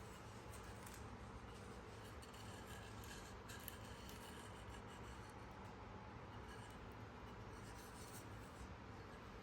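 Faint scratching and rubbing over a low, steady hum.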